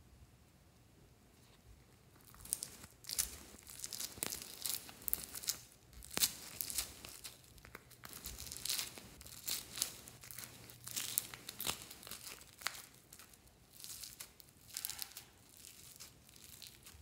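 Floam (tiny foam beads held together in slime) crackling and crunching as fingers squeeze and pull clumps of it out of a plastic tray. The crackles come in irregular bursts, starting about two seconds in.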